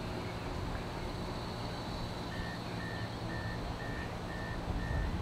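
Bombardier E-class trams with a low steady hum of their motors, joined from about two seconds in by a tram's warning signal: six evenly spaced electronic beeps at one pitch, about two a second.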